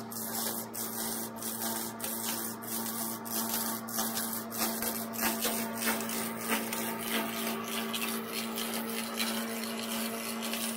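Self-feeding log lathe running, its cutter head shaving a turning log, with a steady electric-motor hum and frequent short clicks over the cutting noise.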